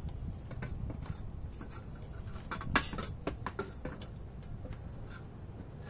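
Scattered light clicks and scrapes of a plastic bracket and a small screw being fitted by hand to a metal tripod leg, with one sharper click a little under halfway through.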